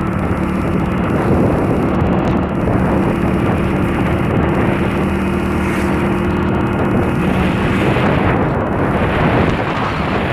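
Hero Passion Pro motorcycle's single-cylinder engine running steadily at cruising speed, under heavy wind rumble on the handlebar-mounted microphone; the engine note wavers about eight seconds in.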